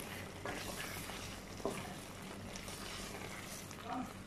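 Wooden spatula stirring a thick potato and coconut-milk curry in a stainless steel pan: faint scraping and sloshing with a few light knocks against the pan, over the low steady hiss of the curry simmering on a low flame.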